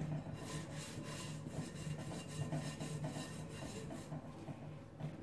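A hand kneading and mixing flour into soft yeast dough in a glass bowl, with repeated rubbing and scraping strokes against the bowl. The last of the flour is being worked in gradually.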